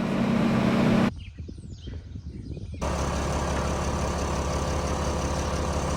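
Engine running steadily, cut about a second in to a quieter stretch of light clicks and rustling, then from near three seconds a deeper-pitched engine running steadily.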